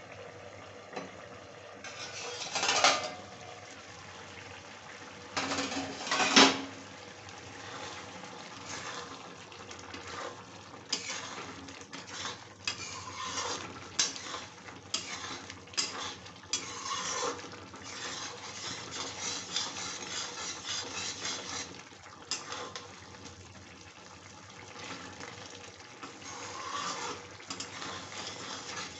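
A steel plate used as a lid is taken off a kadhai with two loud metal clatters, then a metal ladle stirs the potato and soybean curry, clinking and scraping against the pan many times.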